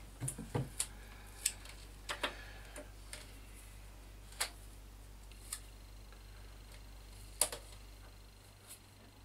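Scattered light clicks and taps at irregular intervals, about a dozen in all, the sharpest about seven and a half seconds in, over a faint steady low hum.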